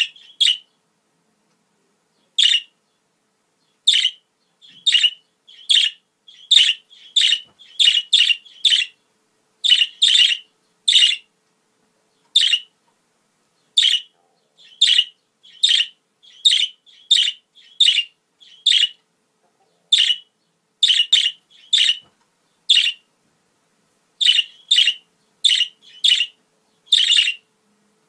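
Budgerigars chirping: short, sharp calls repeated at uneven intervals, about one to two a second, with silent gaps between.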